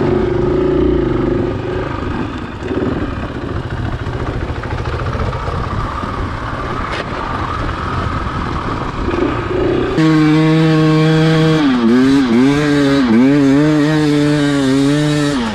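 KTM enduro dirt bike engine running under throttle on a ridge trail, heard from the rider's own bike along with a rushing noise. About ten seconds in the sound changes abruptly to a clear, steady engine note that rises and falls repeatedly as the throttle is worked on a steep climb.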